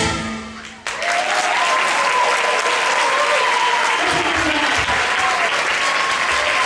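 The song's music fades out, then audience applause breaks out a little under a second in and carries on steadily, with voices calling out over it.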